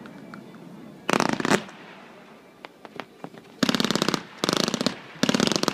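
Fireworks crackling: a short burst of rapid crackle about a second in, then three longer bursts of dense crackling pops in the second half, from crackling star effects bursting overhead.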